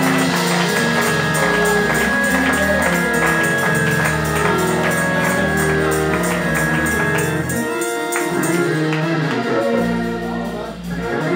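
Church band music: held keyboard chords over drums, with a tambourine marking a steady beat.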